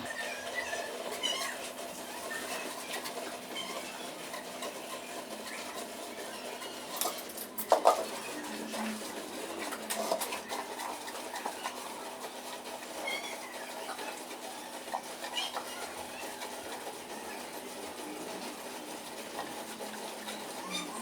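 Milking machine running with a steady hum, with scattered small bird chirps over it and a loud metallic clank about eight seconds in.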